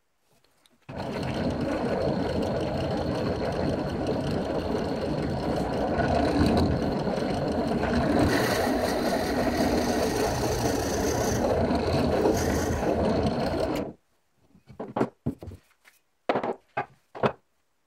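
Benchtop drill press running and drilling into a wooden file handle, a steady motor-and-cutting noise that starts about a second in and cuts off suddenly near the end. A few short knocks follow.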